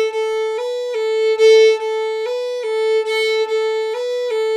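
Fiddle playing a Georgia shuffle bowing pattern: a three-note slur on the up bow followed by a single accented down-bow stroke, repeated over and over. It is a steady, driving figure that rocks between two neighbouring notes, with the accents falling on the backbeat.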